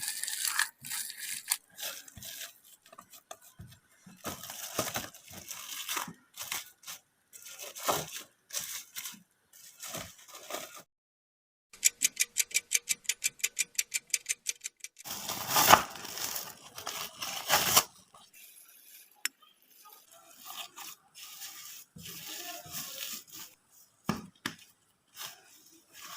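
Kitchen food-preparation handling sounds: irregular rustling and scraping. Midway there is a fast, even run of taps, about seven a second, followed by a louder stretch of scraping.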